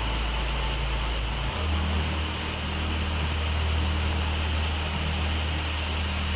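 Steady hiss of heavy rain, with a low hum underneath that changes pitch once about a second and a half in.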